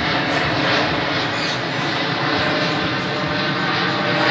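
Jet engines of a Boeing 787-8 airliner climbing overhead after takeoff: a loud, steady rushing noise with faint steady tones running through it.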